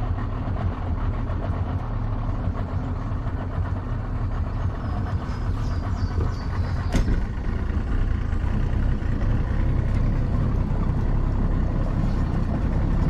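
Boat's outboard motor idling steadily with a low rumble, and a single sharp knock about seven seconds in.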